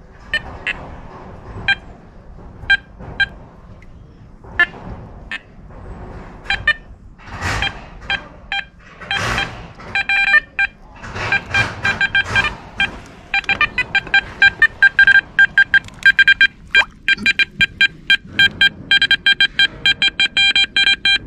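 Garrett Apex metal detector giving short, pitched target beeps, scattered at first and then coming rapidly, almost without pause, over the last several seconds as the coil passes over a metal target in the pond. Two brief swishes come around the middle.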